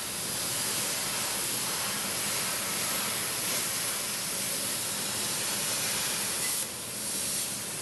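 Steady, loud rushing hiss that cuts off abruptly near the end.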